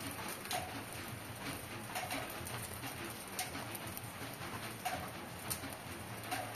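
Water dripping irregularly off wet foliage after rain: scattered sharp ticks and small plops, a second or so apart, over a faint steady hiss.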